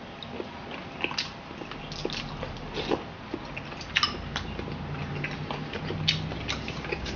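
Close-up eating sounds: wet chewing, sucking and lip smacks as boiled chicken feet are eaten by hand, in irregular clicks several times a second, over a faint low hum.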